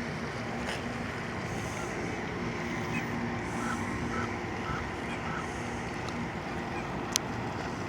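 Steady outdoor rumble of distant traffic. A few faint, evenly spaced chirps come in the middle, and a single sharp click comes near the end.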